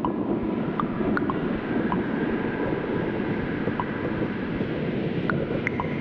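Steady, dense rumbling noise like wind or a distant engine, with faint thin high tones and a few scattered light clicks. It is an ambient sound layer of the dance piece's soundtrack, swelling in just before and holding level.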